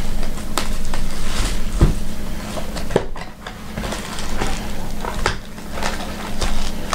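Plastic shrink wrap and foil trading-card packs crinkling and rustling as they are handled in a cardboard box, with many scattered clicks. A low steady hum runs underneath.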